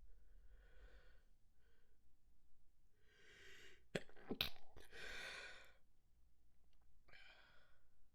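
A stifled sneeze about four seconds in: a breathy inhale, two or three sharp, clipped bursts held in, then a breathy exhale. Soft breaths come before and after it.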